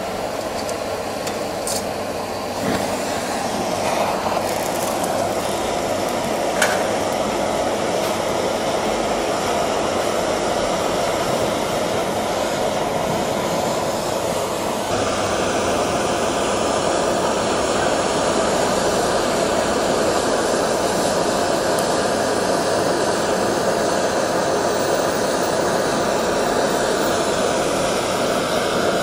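Butane gas torch flame hissing steadily as it is played over sea urchins on a wire grill.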